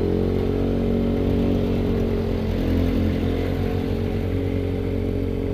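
Motorcycle engine running under way at a steady speed, its pitch holding nearly level.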